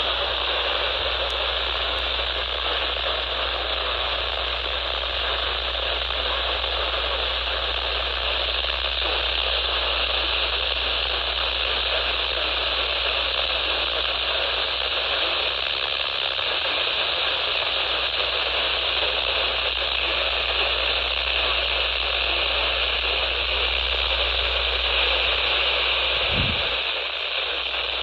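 Steady hiss of radio static from a receiver with no programme audio, cut off above the upper midrange. A brief low bump comes near the end.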